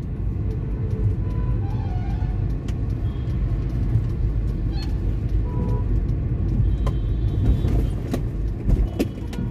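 Road traffic noise heard from a moving vehicle: a steady low rumble, with short faint beeps and clicks now and then.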